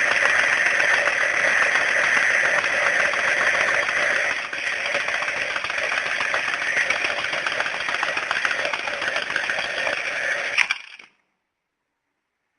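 Bomb-shaped alarm clock going off with a loud, continuous rapid rattling ring. It drops a little in level about four and a half seconds in and cuts off with a click about ten and a half seconds in.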